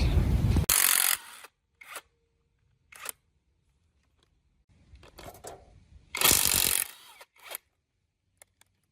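Two short, loud bursts of tool-work noise, one near the start and one about six seconds in, with a few single clicks between them, separated by near-silent gaps.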